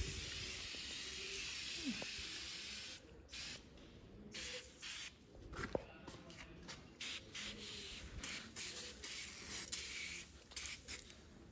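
Aerosol tyre-shine spray hissing out of the can onto a tractor tyre: one continuous spray for about three seconds, then a run of short spurts.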